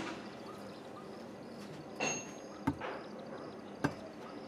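Hand rammer tamping moulding sand into a steel casting flask for a truck brake drum: two sharp thuds a little over a second apart in the second half, after a short scrape with a faint ring about halfway through.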